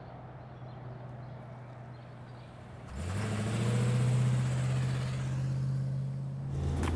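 Motor vehicle engine, running quietly at first; about three seconds in it gets louder and rises in pitch as the vehicle accelerates, then holds a steady note.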